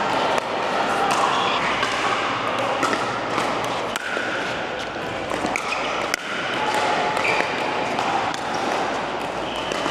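Pickleball paddles striking the hollow plastic ball and the ball bouncing, many sharp irregular pops from the game and neighbouring courts, over a background din of voices.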